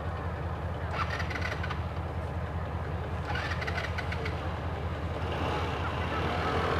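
A steady low engine rumble. Short bursts of clicking noise come over it about a second in and again around three and a half seconds in.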